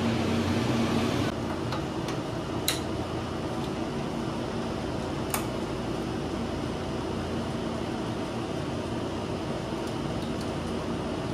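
Steady hum of cooling fans and machinery, with a hiss that drops away about a second in. Two sharp clicks are heard as the metal laser source housing and its fittings are handled.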